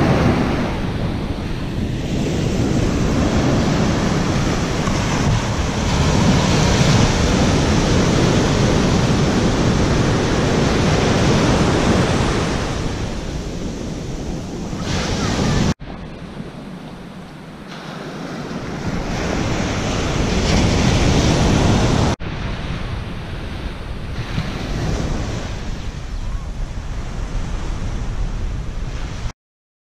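Small waves breaking and washing up a sandy beach, with wind rumbling on the microphone. The sound drops off abruptly twice and stops shortly before the end.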